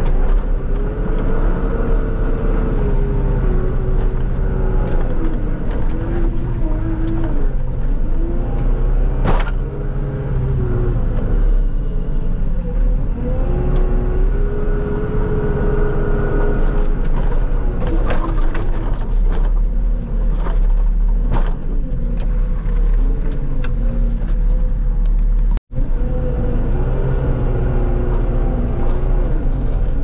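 Skid steer's diesel engine running steadily while it pushes snow, its pitch rising and falling as the throttle and load change. The sound drops out for an instant near the end.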